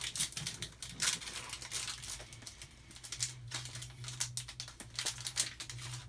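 Foil wrapper of a Panini trading-card pack crinkling and tearing as it is opened by hand, in a run of irregular crackles. A steady low hum sits underneath.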